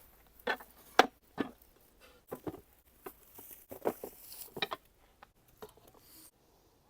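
A string of sharp, irregular clicks and knocks, about a dozen spread across several seconds, with the loudest about a second in, over a faint rustle.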